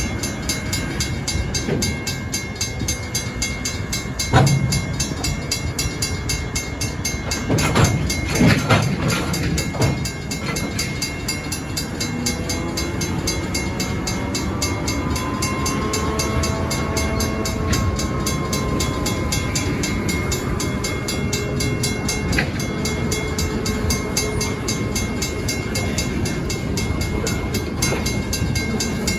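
A freight train moving along the track with a steady rumble. Sharp metallic clanks come about four seconds in and again around eight to nine seconds, and a faint drawn-out squeal rises and falls around the middle.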